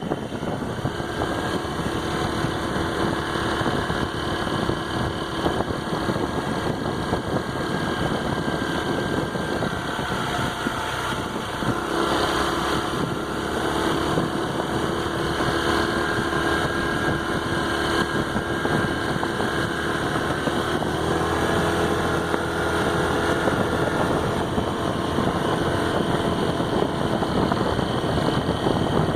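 Honda PCX scooter's single-cylinder engine running steadily, its pitch shifting a couple of times as the throttle is worked. The owner says it makes a tinny rattle, like banging tin, only under throttle, stopping the moment the throttle is released, on a scooter with 340 km from new.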